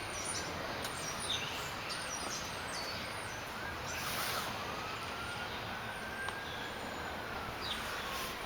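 Steady outdoor background noise, like distant traffic, with a faint high tone that rises slowly and then falls over several seconds in the second half, like a far-off siren. Faint high chirps, like small birds, come and go.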